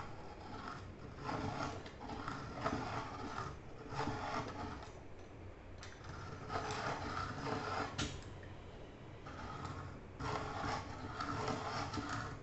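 Hand-cranked metal table-top pencil sharpener being turned, its rotary cutter grinding down a pencil in a run of short spells with brief pauses, and a single sharp click about two-thirds of the way through.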